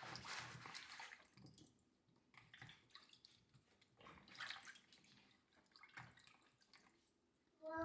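Faint, intermittent water sounds, splashing and dripping in short swishes, as of water being poured or things being rinsed.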